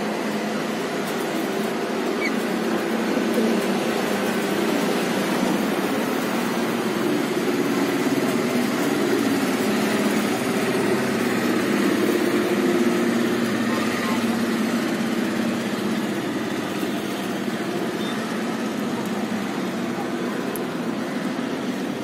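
Steady city background noise, a continuous hum of distant traffic with faint, indistinct voices mixed in.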